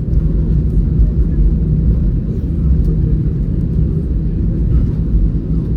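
Airbus A320 cabin noise: a steady low rumble of the engines running at idle, heard from inside the cabin.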